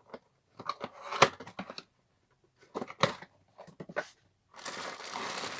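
Hair dryer packaging being opened by hand: scattered sharp clicks and short tearing sounds. About two-thirds of the way through, a steady crinkling of the wrapping begins.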